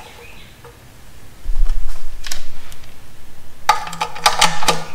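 Handling and knocking as the metal clutch cover is fitted against the bell housing. About a second before the end, a Milwaukee cordless power driver runs in the cover bolt with a buzzing, rapidly pulsing motor sound lasting about a second.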